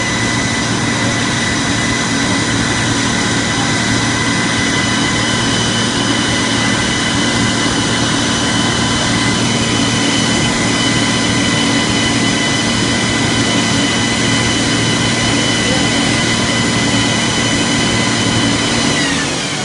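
Concrete mixer truck's diesel engine running at steady high revs with a continuous whine, falling in pitch and level near the end as it winds down.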